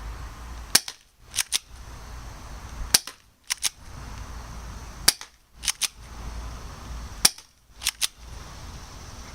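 Colt M1911A1 spring-powered airsoft pistol firing four shots about two seconds apart, each a sharp snap followed about half a second later by a quick pair of clicks.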